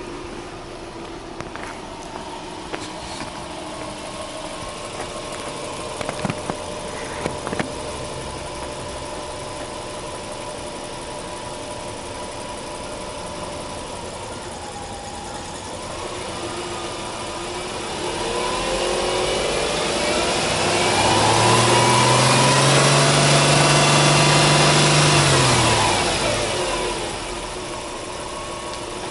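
Subaru Impreza 1.5i-S Limited's 1.5-litre flat-four (boxer) engine idling steadily, with a few sharp clicks about six to seven seconds in. About two-thirds of the way through it is revved without load: the pitch rises, holds high for a few seconds, then falls back to idle.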